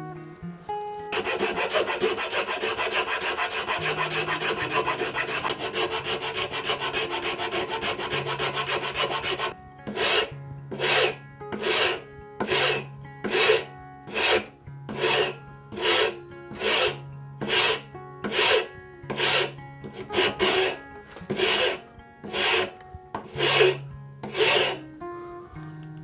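A hand-turned auger bit boring into a zebrawood knob, a continuous cutting scrape for the first nine seconds or so. It then changes suddenly to a long file worked across the wood in even strokes, about one every three-quarters of a second. Soft background music runs underneath.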